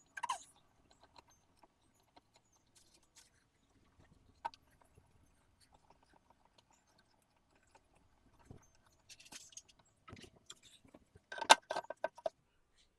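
Intermittent clinks and rattles of plant-stand parts and hardware being handled during assembly, sparse at first with a louder cluster of clatter near the end.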